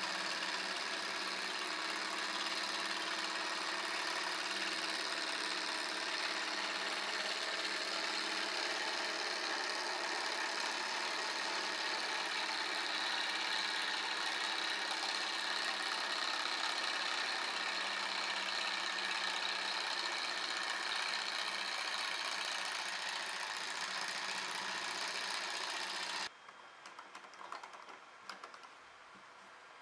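Miniature hot-air Stirling engine generator running fast, a steady mechanical whir with a quick light clatter. It cuts off abruptly near the end, leaving faint clicks of the engine being handled.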